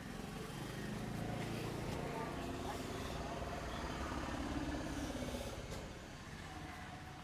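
A motor vehicle passing along the street, its engine hum swelling for a few seconds and then fading, with faint voices in the background.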